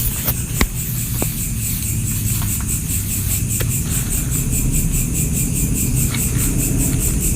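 Crickets chirping steadily in quick, even pulses, over a low rumble, with a few faint clicks.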